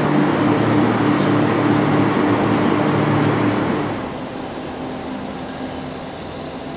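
Transperth A Series electric train standing at the platform with its doors open, humming steadily in several pitches. About four seconds in, the sound drops to a quieter, thinner hum.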